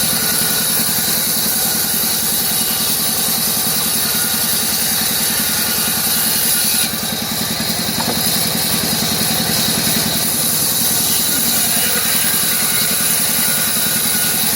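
CNC router spindle running and cutting wood, a steady high whine over a loud hiss with a fast low vibration underneath; the level dips slightly about seven seconds in.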